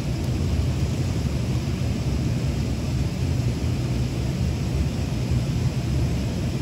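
Steady low rumble of a wood-fired maple syrup evaporator running: the firebox with its blower fan and the boiling pans.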